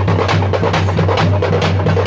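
A drum troupe's large stick-beaten drums playing a fast, loud, driving rhythm of many strokes a second, over a steady low hum.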